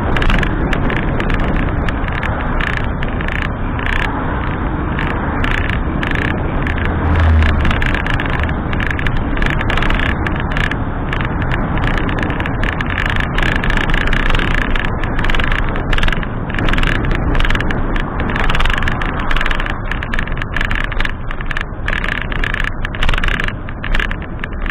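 Steady rushing wind and road noise on the microphone of a handlebar-mounted camera on a moving road bike, with a brief low buffet about seven seconds in.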